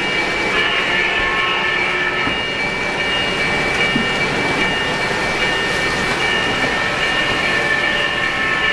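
Three-rail O-gauge model train, a steam locomotive pulling passenger cars, rolling past on the track with a steady rumble. Thin high tones come and go over the rumble.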